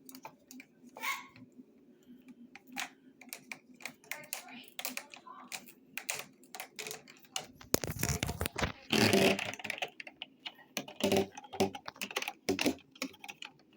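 Plastic parts of a Dirt Devil Endura MAX upright vacuum being handled and fitted back into place by hand, a string of light clicks and knocks. There is a louder clatter about eight seconds in. The vacuum is not running.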